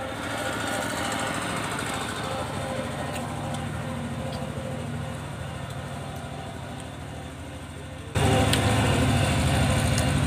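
A small engine running steadily at idle, its hum getting suddenly louder near the end.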